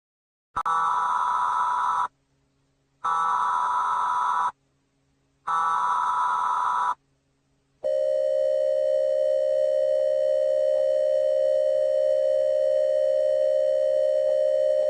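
Mock Emergency Alert System signal: three data-noise header bursts of about a second and a half each, with short silences between them, then a single steady attention tone held for about eight seconds.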